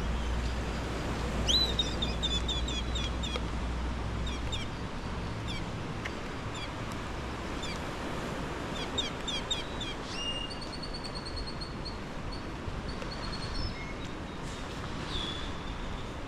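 Birds calling: quick series of short chirps, then several longer whistled notes about ten seconds in, over a steady hiss of rain. A low rumble fades out about four seconds in.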